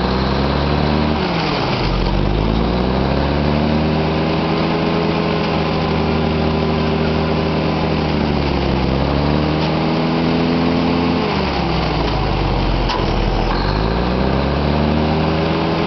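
Drilling rig's diesel engines revving up under load and holding, dropping back about ten seconds in, then revving up again near the end: the drawworks hoisting while tripping pipe.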